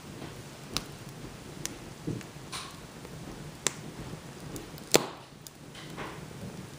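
Fire burning in a fireplace, crackling softly with sharp pops at irregular intervals, about one a second, the loudest about five seconds in.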